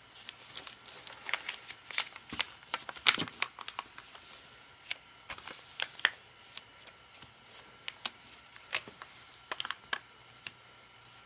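Sheet of paper rustling and crackling as it is folded into a paper airplane and its creases are pressed flat on a wooden floor. Irregular crisp rustles and snaps, busiest about two to four seconds in and again near the end.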